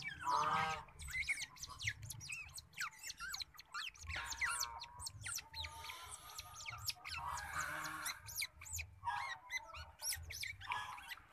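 Newborn otter pups squeaking and chirping while they nurse: many short, high-pitched calls that rise and fall, with a few lower honking cries.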